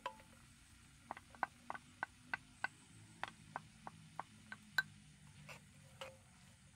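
Wooden spoon tapping and scraping chopped onion out of a small ceramic bowl: about a dozen light clicks, about three a second, each with a brief ring of the bowl, the last one the loudest.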